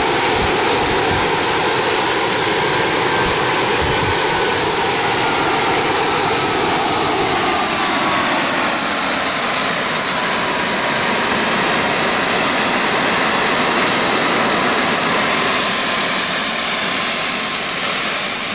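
Home-built kerosene-fuelled model turbojet, with centrifugal compressor and axial turbine, running at high power: a loud, steady jet rush with a high turbine whine. About halfway through, the whine drops in pitch as the engine spools down a little, then holds steady.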